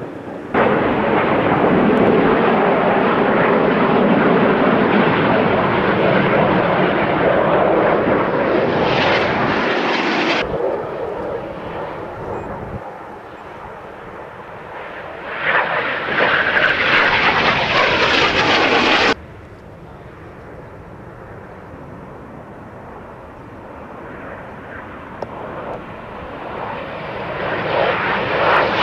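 Snowbirds CT-114 Tutor jets flying past, the steady rushing noise of their turbojet engines swelling and fading. The noise starts and stops abruptly several times.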